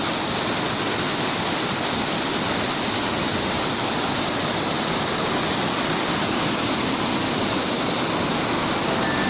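Lembah Anai waterfall's water falling and splashing: a steady, even rushing sound.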